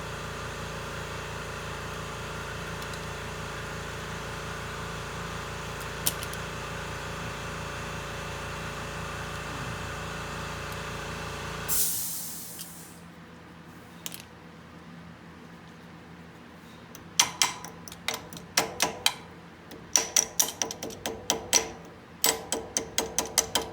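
A steady machine hum stops abruptly about halfway through with a short burst of hissing air. After a pause, clusters of quick, sharp metallic clicks follow.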